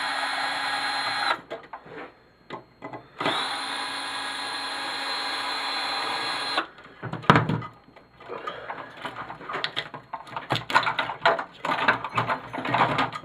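Power drill running in two steady whines of a few seconds each while a small TV is taken apart, then a run of clicks and knocks from parts being handled.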